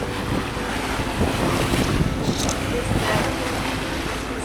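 Wind buffeting the microphone over the rush of sea water along a moving yacht's hull, a dense, uneven noise that swells and eases.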